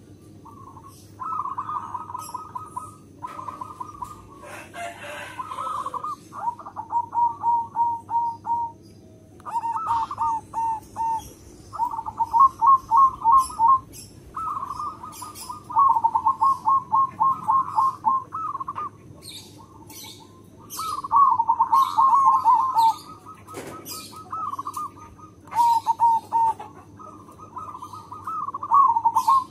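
Zebra dove (perkutut) singing its cooing song: repeated bouts of quick, staccato coo notes, each bout lasting a second or two with short gaps between. There is a brief rustle about five seconds in.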